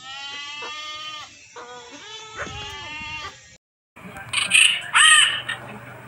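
Goats bleating, several overlapping wavering calls for about three and a half seconds. After a short gap, a scarlet macaw gives two loud, harsh squawks less than a second apart.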